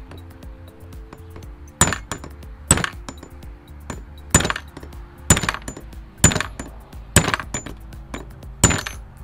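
Hammer blows on a steel punch driving the center pin out of a Honda Pioneer 520 differential case: seven sharp metallic strikes with a short ring, about one a second. The pin is stuck and barely moving.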